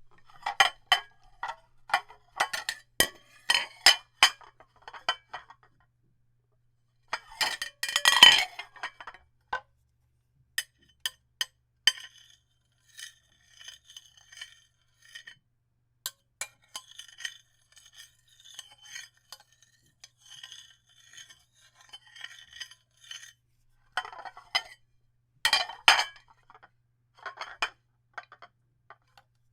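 Dishes clinking and clattering against one another in irregular bursts. The loudest is a dense clatter about eight seconds in, with another burst around twenty-five seconds. Lighter, scattered clinks with a brief ring come in between.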